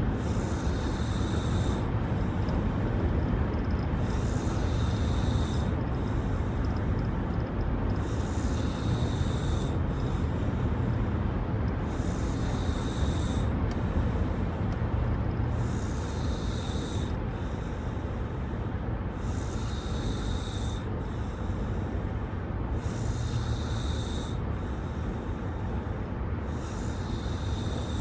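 A woman snoring in her sleep, a loud breath about every three and a half seconds, over the steady low rumble of the moving car.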